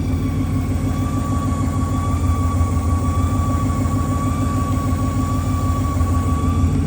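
Ford Mustang Boss 302's 5.0 V8 running with a steady high whistle over its low engine rumble, a whine like a supercharger, which the owner traces to the bellhousing rather than the front-end pulleys.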